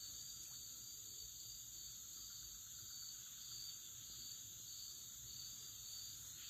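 Faint chorus of insects, steady and high-pitched, with one voice pulsing at an even rhythm, over a low outdoor background.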